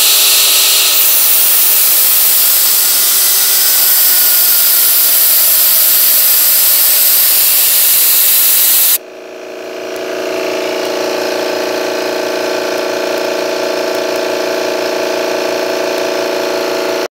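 Homemade turbo jet built from an AiResearch turbocharger running: a loud rushing noise with a high whine, some tones sliding down in pitch in the first few seconds. About nine seconds in it cuts to a lower, humming run with several steady tones, which builds over a second or so, holds steady, and stops suddenly near the end.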